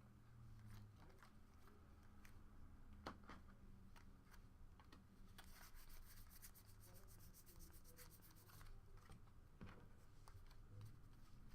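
Faint rubbing and flicking of trading cards being thumbed through one after another, with a quick run of soft ticks near the middle.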